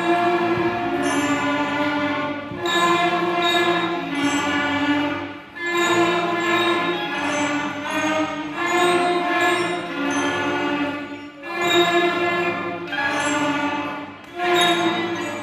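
Sixth-grade concert band of brass and woodwinds playing a simple tune in sustained notes, in phrases of about three seconds with brief breaks between them.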